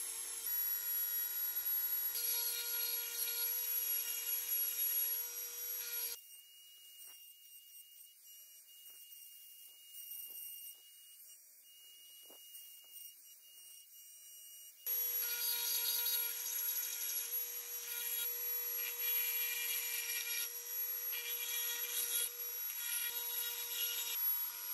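Handheld electric rotary tool running at high speed with a small bit grinding and cleaning rust inside an axe eye: a steady whine with scraping noise. It stops about six seconds in, leaves only a faint high tone, and starts again a little past halfway.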